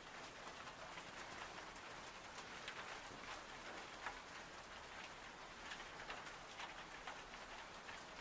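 Faint rainfall: a steady hiss of rain with many small, scattered drop ticks.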